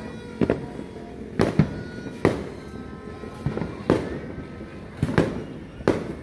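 Fireworks going off overhead: about eight sharp bangs at uneven intervals, some in quick pairs.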